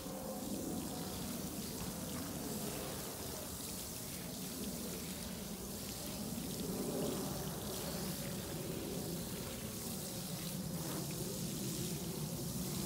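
Water from a garden hose nozzle pouring steadily onto potting soil in a fabric grow bag, gently watering it in.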